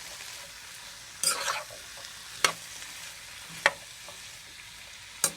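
Chicken and vegetables sizzling in a small wok, with a utensil scraping once and clacking against the pan about four times as they are stirred.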